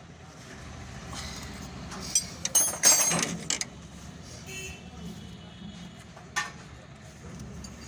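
Mahindra Maximo two-cylinder diesel engine running at a steady idle, with a burst of loud knocks and rattles about two to three and a half seconds in and one more sharp knock near the end.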